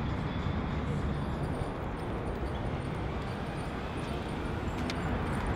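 Steady city street ambience: a continuous low rumble of traffic with no distinct events.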